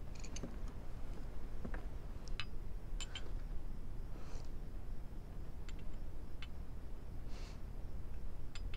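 Light, scattered clinks of a porcelain spoon against a soup bowl, about ten in all, over a low steady room tone.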